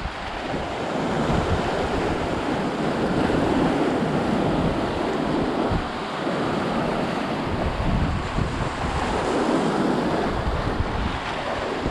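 Sea waves breaking and washing over rocks, rising and falling in surges, with wind buffeting the microphone.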